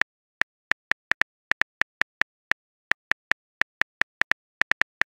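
Phone keyboard click sound effect: some two dozen short, identical ticks at uneven spacing, about four to five a second, one for each letter typed into a text message.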